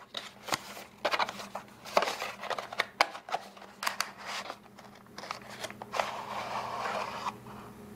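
Cardboard earbud retail box handled and opened by hand: an inner box sliding out of its printed sleeve, with scattered clicks and taps of cardboard and a stretch of rubbing near the end.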